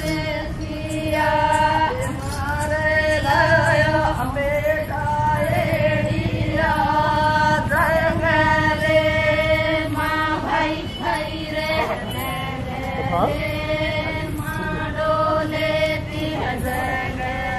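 Lambada (Banjara) women singing a folk song together, their voices holding long notes.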